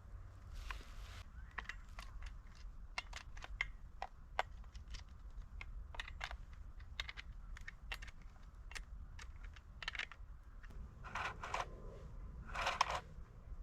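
Irregular sharp clicks and light knocks of small hard parts being handled, with a short rustle about a second in and two brief rattling scrapes near the end.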